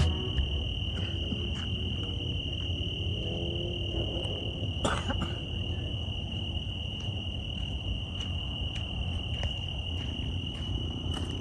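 Crickets trilling in one steady, unbroken high note over low background noise, with a few faint clicks and a sharper one about five seconds in.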